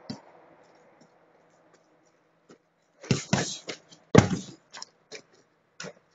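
A heavy punching bag taking hard strikes: a quick cluster of thuds about three seconds in, then the loudest single thud of a kick a second later, followed by a few lighter taps.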